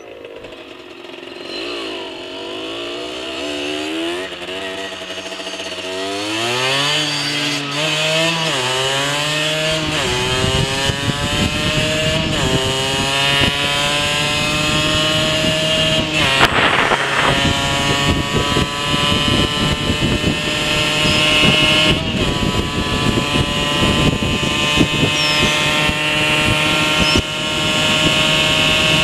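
2004 Rieju SMX 50cc two-stroke moped engine on its stock exhaust, pulling away and accelerating up through the gears: the pitch rises and drops back at each of several shifts, then holds a steady high-revving note at cruising speed. Wind noise over the microphone grows as the speed builds.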